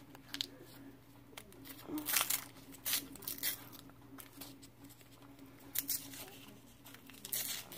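A taffy wrapper being crinkled and torn open by hand: scattered, irregular bursts of rustling and crackling, over a faint steady hum.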